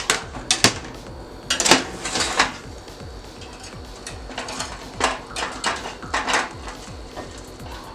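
Kitchen clatter: a baking pan and dishes knocking, clinking and scraping in a string of short irregular strikes, loudest in the first two and a half seconds.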